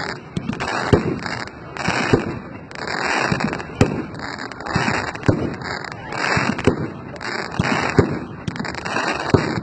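Fireworks display: a string of sharp bangs from shells bursting, with crackling hiss swelling and fading about once a second.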